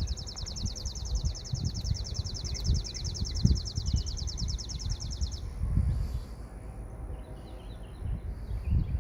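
Outdoor nature ambience: a high, rapid trill that stops about five and a half seconds in, followed by scattered faint chirps, over a low rumble of wind.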